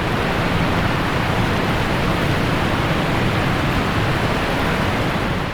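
Steady rushing of a waterfall in full flow, an even roar with a low rumble underneath.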